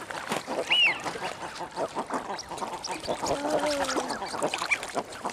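Mixed waterfowl calling at a pond: a brief high whistle about a second in and a drawn-out honking call in the middle, over a busy patter of short clicks and chatter.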